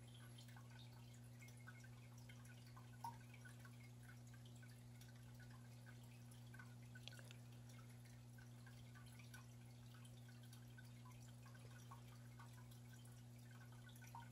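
Faint aquarium filter running: a steady low hum with soft drips and bubbling of water, and one slightly louder drip about three seconds in.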